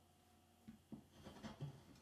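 Near silence: room tone, with a few faint, short taps in the second half.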